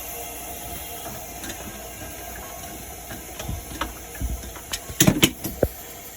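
Steady hiss with scattered clicks and knocks starting a little past halfway, the loudest a quick cluster of sharp knocks about five seconds in.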